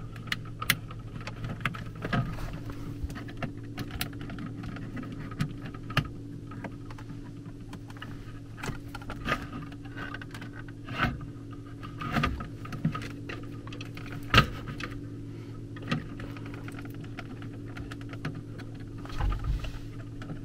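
Irregular small clicks, taps and rustles of hands working thin thermostat wires into the plastic terminal blocks of a zone control panel, over a steady low hum.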